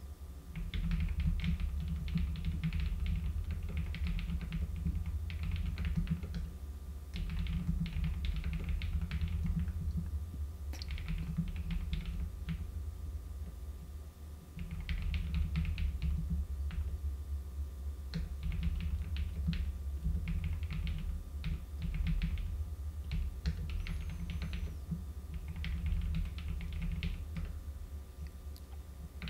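Typing on a computer keyboard in quick bursts of keystrokes, with a few short pauses, the longest a couple of seconds about halfway through.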